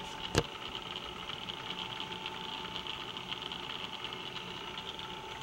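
Bridgeport Series I milling machine table traversing along the X axis under its Acu-Rite MillPwr power drive, a steady motor hum with a thin whine. A single sharp click comes about half a second in.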